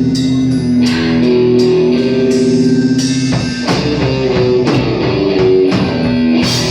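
Music: guitar with a drum kit keeping a steady beat.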